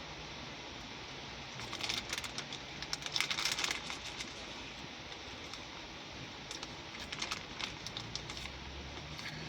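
Bag of Nerds candy corn crinkling, with the small hard candies rattling inside as it is shaken and rummaged through: two spells of quick clicks, the first about two seconds in, the second around seven seconds in.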